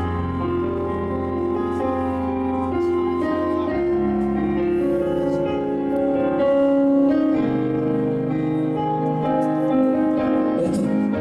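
Electronic keyboard playing slow, sustained chords over long-held bass notes, changing chord every second or two.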